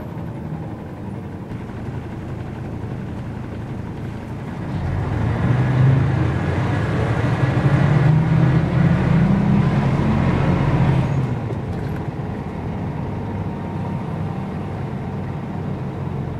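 Diesel engine of a 2001 Mercedes-Benz O405 N² low-floor city bus running while the bus stands. Its low rumble grows louder for several seconds around the middle, then settles back to a steady run.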